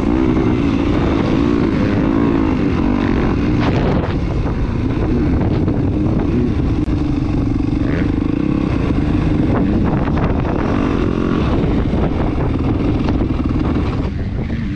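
Dirt bike engine running and revving, its pitch rising and falling repeatedly with the throttle.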